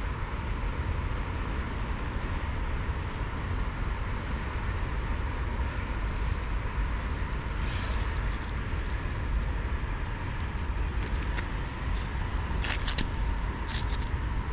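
Steady outdoor rumble and hiss, heaviest at the low end, with a few brief high-pitched sounds in the second half.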